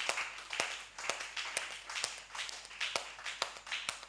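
Hands clapping in an uneven rhythm, about three claps a second.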